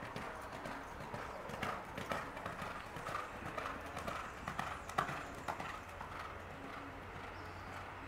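Thoroughbred racehorse's hooves striking a dirt track as it passes close by. The irregular hoofbeats build to their loudest about two-thirds of the way in, then fade as the horse moves away.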